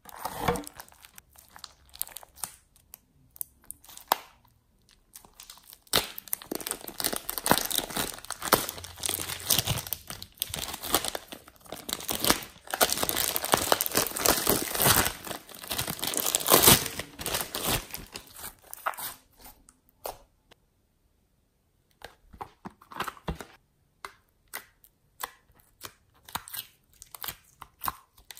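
A plastic bag crinkling as thick slime is squeezed and peeled out of it, a dense sticky crackle lasting about fourteen seconds. After a brief pause, scattered small sticky clicks as the slime is poked and pulled in a plastic tray.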